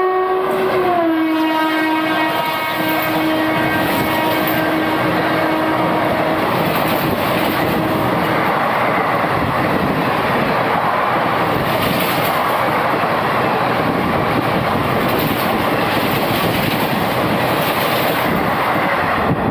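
Indian Railways electric locomotive's horn sounding one long blast that drops in pitch about a second in as it passes close by, fading out around eight seconds in. Under and after it, the loud rush and clickety-clack of its passenger coaches going past on the adjacent track.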